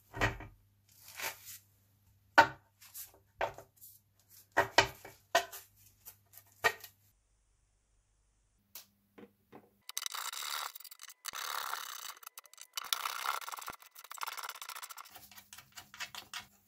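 Hand work on an object: a string of sharp clicks and knocks, then about six seconds of rough scraping or tearing with short breaks.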